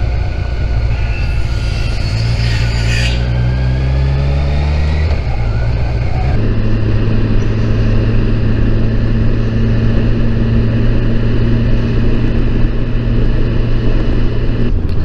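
Kawasaki Versys 1000 SE's inline-four engine under way with heavy wind rush. The engine note rises in pitch for a few seconds, changes about five seconds in, then holds steady at cruising speed.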